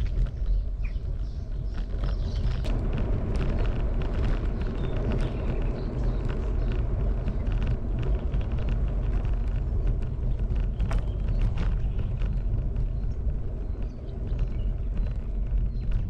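A steady low rumble with scattered light clicks and knocks, as of movement along a road.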